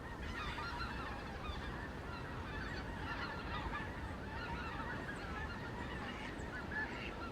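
A large flock of waterfowl calling steadily, with many overlapping calls forming a continuous clamour.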